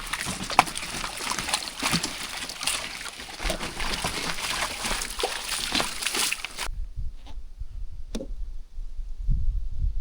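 Rainwater running and trickling, with sloshes and splashes, after several days of heavy rain. About two-thirds of the way through it cuts off abruptly to a quieter stretch with a low rumble and a few soft ticks.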